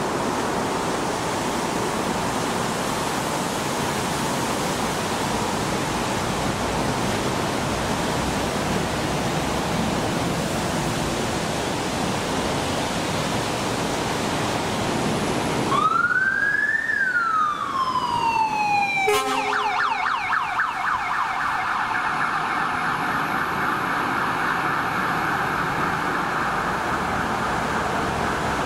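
Fire rescue truck siren coming on after a steady rushing noise: one wail that rises and falls, then a switch to a fast warbling yelp that keeps going, with a brief low tone at the changeover.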